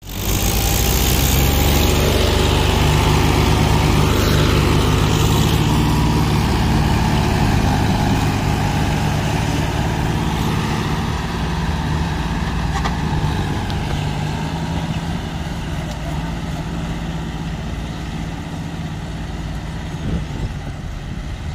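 Diesel tractor engines, a John Deere and a Mahindra 475 DI, running hard under load while pulling a stuck, sand-laden trolley free. The low, steady engine note is loudest over the first few seconds and then eases a little.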